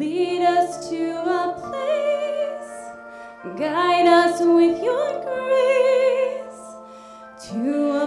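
A woman singing a slow song into a microphone over held accompaniment chords: two long phrases with vibrato, with a short break between them about three seconds in.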